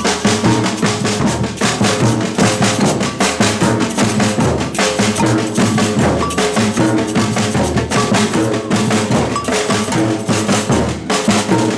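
Batucada samba percussion ensemble playing a steady, fast rhythm: deep surdo bass drums pulsing under snare and hand-drum strokes, with a cowbell-like bell part standing out on top.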